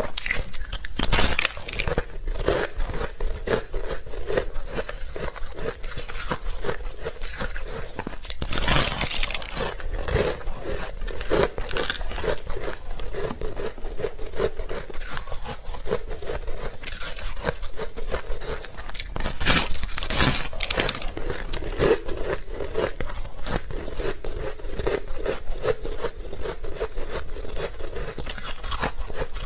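White ice being bitten and chewed: a dense, continuous run of crunching and crackling.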